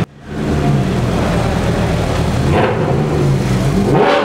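Several sports car engines running in a road tunnel, with one revving up near the end.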